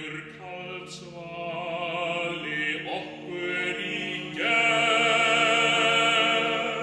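Male choir singing a cappella in Icelandic, holding sustained chords that swell into a louder, fuller chord about four and a half seconds in.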